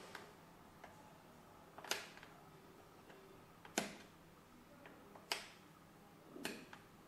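Power and speed push button on a UKICRA UFR-727 household sewing machine clicking as it is pressed, five sharp clicks one to two seconds apart, the loudest two in the middle.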